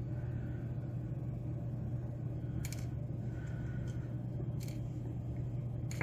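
Steady low hum with a few faint, sharp clicks of small metal lock parts (pins and the core's plug) being handled.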